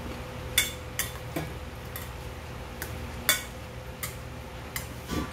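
Metal chopsticks clinking against a stainless steel bowl while stirring jajangmyeon noodles into their black bean sauce: about eight sharp, irregular clinks.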